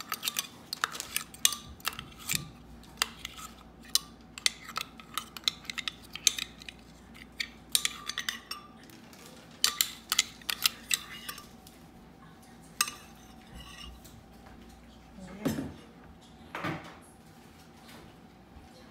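Kitchen utensils and dishes clinking and clattering: many sharp, irregular taps with a brief ring, busy through the first half and sparser after.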